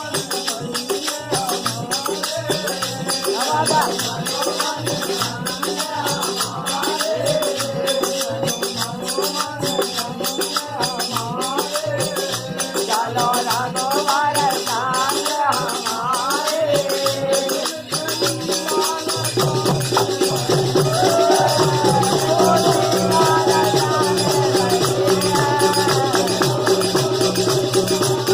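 Faag folk song: a singer's voice over a steady beat of hand percussion with jingling, rattling cymbals. About two-thirds in, the accompaniment changes pattern and grows a little louder.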